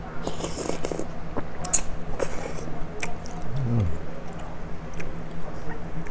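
Close-up eating sounds of pho: a few short slurps of rice noodles early on, then wet chewing, with chopsticks and a spoon clicking against the ceramic bowl. A brief low falling hum comes about halfway through.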